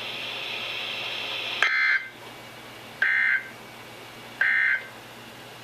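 NOAA Weather Radio's EAS end-of-message code from a weather radio: three short buzzy bursts of digital SAME data tones, about a second and a half apart, over steady radio hiss. They mark the end of the Required Weekly Test.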